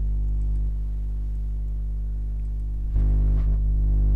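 Steady electrical hum: a low buzz with a stack of evenly spaced overtones. It steps up louder about three seconds in, with a brief faint sound at that moment.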